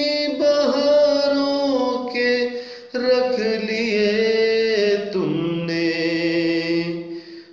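A voice singing an Urdu patriotic song in long, drawn-out notes with vibrato. There is a short break about three seconds in, and the sound dips near the end.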